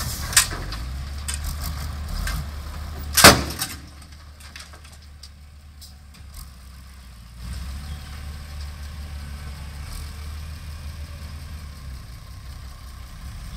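Six-wheel dump truck's diesel engine running as it tips out a load of soil and rock, with knocks and clatter over the first few seconds and one loud bang about three seconds in. The engine drops back for a few seconds, then picks up again about seven and a half seconds in.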